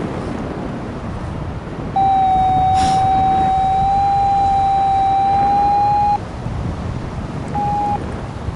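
A steady electronic tone, held about four seconds with a slight wobble in pitch, then one short beep at the same pitch, over wind buffeting the microphone.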